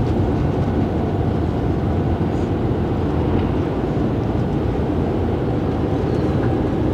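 Motorhome driving on the road, heard from inside the cab: a steady low rumble of engine and tyre noise.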